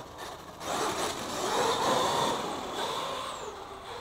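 Radio-controlled car driving fast on damp asphalt: its motor and tyres swell as it runs close by, then fade as it speeds off down the road.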